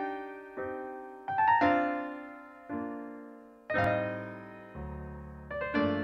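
Piano playing the slow intro of a Mandarin pop ballad: chords struck about once a second, each ringing down, with a low bass note joining about three-quarters of the way through.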